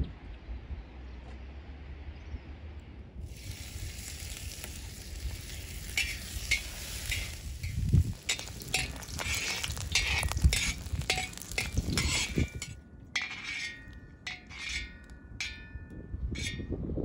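Food frying in hot fat in a large wok over a wood fire, stirred and scraped with a metal ladle. A loud sizzling hiss starts about three seconds in, with the ladle scraping and knocking against the pan. Near the end the sizzle dies down, leaving ringing clinks of the ladle on the metal.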